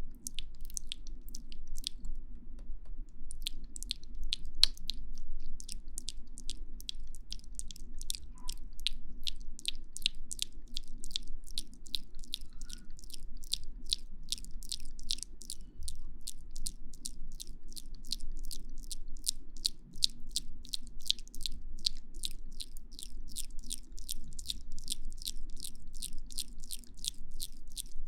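ASMR friction sounds: something rubbed against the microphone in short, crisp, even strokes, about three a second, over a steady low hum.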